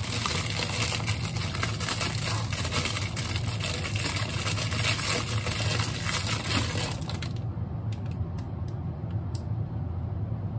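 Clear plastic bag crinkling and crackling as it is unwrapped by hand, stopping about seven seconds in and leaving a few scattered clicks. A steady low hum runs underneath.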